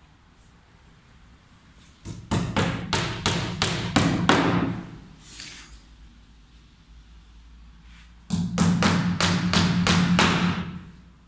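Small hammer striking at the edge of a CNC router's MDF spoilboard in two quick runs of blows, about eight or nine each, the first about two seconds in and the second a little past the middle.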